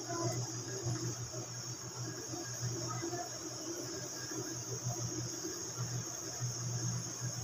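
Breadcrumb-coated beef pieces deep-frying in hot oil: a steady, high-pitched sizzle, with a low hum underneath.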